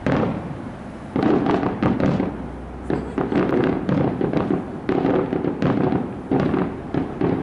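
Fireworks display: a sharp bang, then from about a second in rapid volleys of many bangs and crackles in repeated waves, each with a booming echo.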